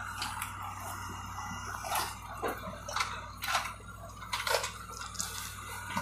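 Caterpillar tracked excavator's diesel engine running with a steady low hum, while wood and debris crack, splinter and crunch irregularly, about a dozen sharp snaps, as the machine pulls the house frame apart.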